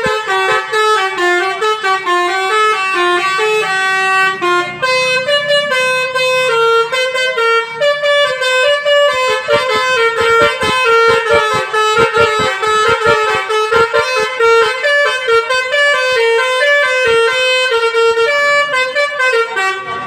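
Tour bus's telolet basuri musical horn playing a tune: a loud, brassy melody stepping up and down in short notes over a beat.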